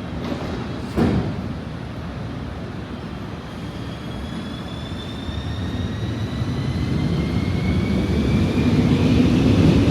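A rail vehicle's electric motors whining, the whine slowly rising in pitch as it accelerates over a rumble that grows louder; a sharp click sounds about a second in.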